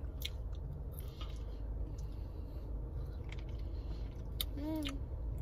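Faint mouth sounds of a child eating a frozen popsicle, a few small clicks and smacks, over a steady low hum inside a car. Near the end comes a short hummed voice sound.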